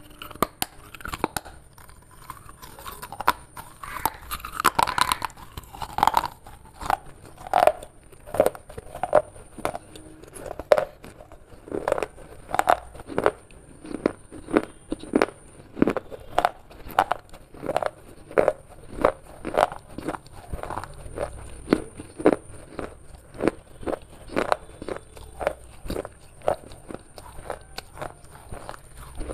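Broken pieces of baked clay pottery being bitten and chewed: a steady series of sharp crunches, about two a second.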